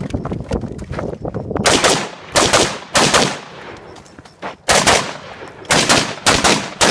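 Rifle shots fired during a timed match stage: about eight sharp, loud cracks, several in quick pairs, each trailing off in a short echo, with fainter cracks in the first second and a half.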